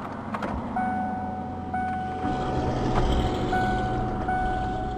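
A car's electronic warning chime, a steady tone that sounds in stretches of about a second with short breaks, heard from inside the car. Low engine rumble comes in about two seconds in.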